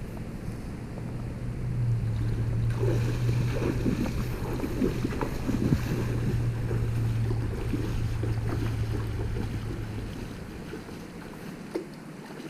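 Steady outdoor noise of wind and moving water, with a low rumble on the microphone that swells about two seconds in and eases near the end.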